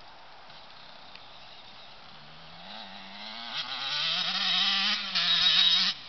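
KTM 85 two-stroke dirt bike engine accelerating: its pitch climbs, drops once at about three and a half seconds as it shifts up, then climbs again and gets much louder before the throttle is shut off sharply near the end.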